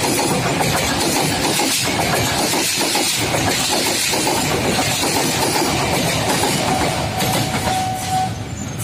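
KRL electric commuter train passing close at speed: a loud, steady rumble and rush with wheels clattering over the rails. It falls away suddenly near the end.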